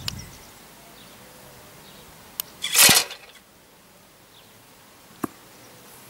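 DT Systems remote bird launcher firing: a sharp click as the release trips, then a brief loud clatter as the spring-loaded mesh bed flips up and open. Another sharp click near the end.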